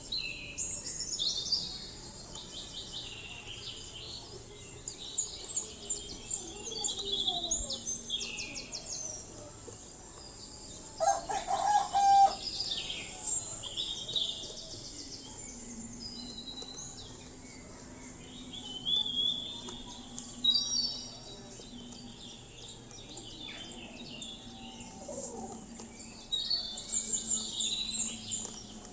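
Birds chirping and trilling in a scattered chorus over a steady, high insect drone, with one louder, lower call about eleven seconds in.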